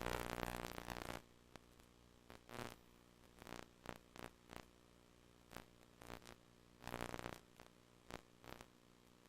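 VHS HiFi audio track playing a blank, damaged stretch of tape: a steady low buzz with irregular bursts of static. The loudest burst lasts about a second at the start, another comes about seven seconds in, and short crackles fall in between.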